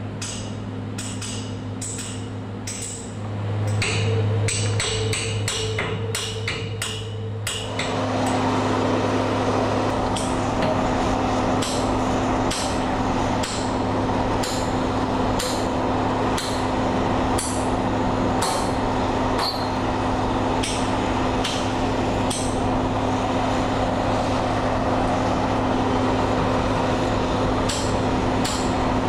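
A hammer striking welded steel shear studs over and over: sharp metallic blows, coming quickly in the first eight seconds and then about one every second or less. Under them runs a steady machine hum, and the background noise grows louder about eight seconds in.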